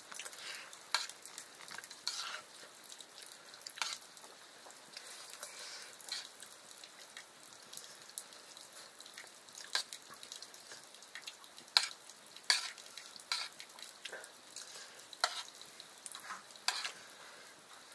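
Food frying in a pan with a steady sizzle, while a spoon stirs it, clinking and scraping against the pan in irregular strokes.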